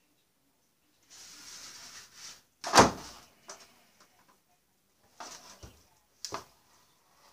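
A heavy pan of pasta being shifted from the stove to the counter: a scraping rasp, then one loud clunk about three seconds in, followed by a few lighter knocks and clatters.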